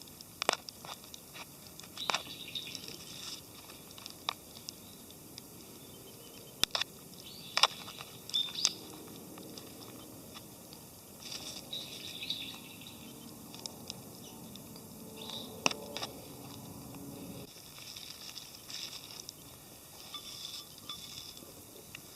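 Wood campfire crackling, with irregular sharp pops and clicks over a faint steady hiss and a denser run of crackle in the middle.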